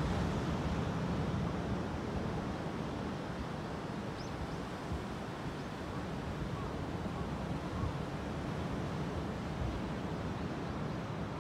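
Ocean surf breaking and washing up a sandy beach, a steady rushing sound, with wind buffeting the microphone as a low rumble.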